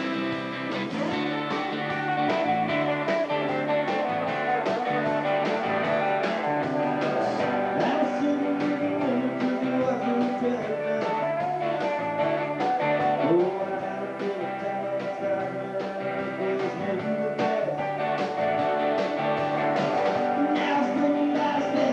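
A rock band playing: guitar-driven song with bass and drums, with a singing voice in places.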